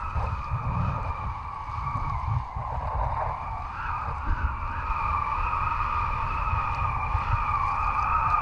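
Wind rumbling on an action camera's microphone, with a steady high whistle above it that wavers slightly in pitch.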